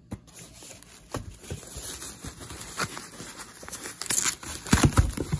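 Plastic wrapping and foam packing sheet crinkling and rustling as hands dig through a cardboard box, with scattered clicks and a few heavier knocks near the end.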